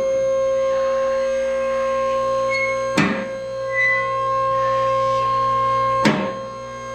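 Two-post vehicle lift's electric-hydraulic pump motor running with a steady whine as the lift raises the car, with two sharp clicks about three seconds apart as its safety locks catch.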